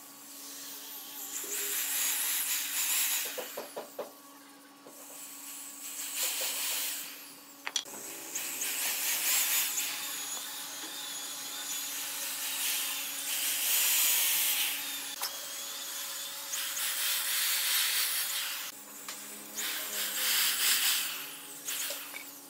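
Handheld electric drill boring pilot holes for double-ended screws into hardwood blocks, in about five bursts of a few seconds each, the motor running and the bit cutting through the wood, with short pauses between holes.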